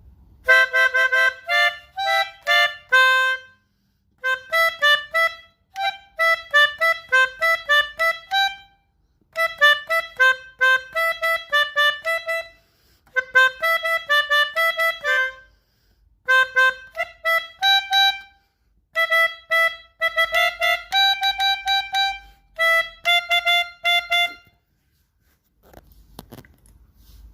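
Melodica (pianika) playing the 'telolet' basuri bus-horn melody: short phrases of quick, bright reed notes, each followed by a brief pause.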